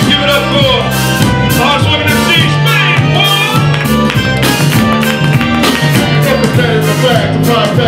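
Live hip-hop polka band playing: accordion over bass and drums, with a vocalist on microphone.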